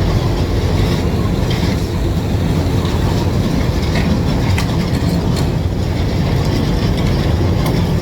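Hydraulic excavator's diesel engine running steadily, with several short, sharp knocks and cracks over it.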